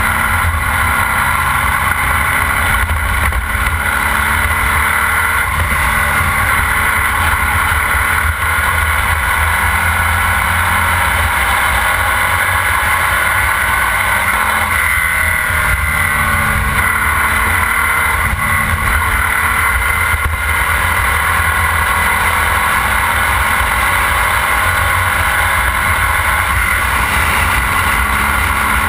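Formula Vee race car's air-cooled 1200 cc VW flat-four engine running hard at racing speed, heard on board. Its pitch rises and dips gently with the throttle.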